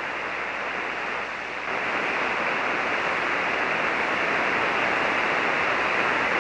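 Steady hiss of static from a ham radio receiver tuned to a 40-metre single-sideband channel, band noise cut off sharply by the receiver's narrow filter, getting a little louder about a second and a half in. No voice stands out of the noise.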